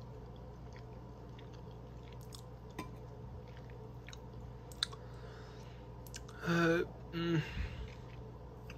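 A person chewing a mouthful of soft cooked pasta, with a couple of light clicks of a metal fork on a glass bowl and two short hummed "mm" sounds about six and a half and seven seconds in.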